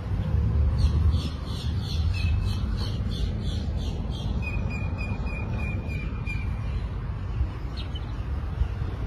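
A bird chirping in a quick run of about five repeated high notes a second, then holding one steady high note for a couple of seconds, over a low wind rumble on the microphone.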